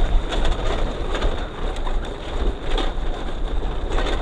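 Wind buffeting the microphone: a steady, loud rumbling rush with no clear tone in it.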